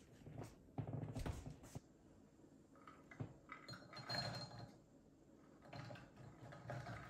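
Soaked kidney beans being scraped out of a glass container with a silicone spatula and dropping into a slow-cooker pot, with light clinks of glass. Soft handling knocks about a second in.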